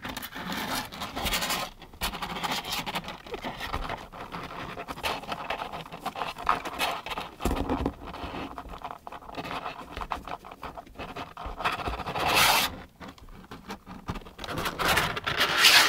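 Kittens and a petting hand scratching and rustling against the sides and floor of a cardboard box, an uneven shuffling that swells louder twice, about twelve seconds in and near the end.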